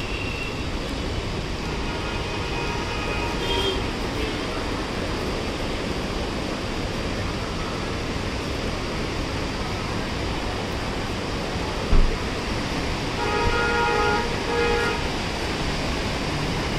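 A steady rushing noise throughout, with a vehicle horn honking twice near the end. There is a sharp thump about twelve seconds in.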